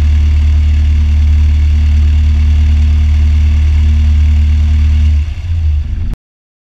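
Cessna 152's four-cylinder Lycoming O-235 engine idling steadily. About five seconds in it is shut down and runs unevenly as the propeller winds down, then the sound cuts off abruptly.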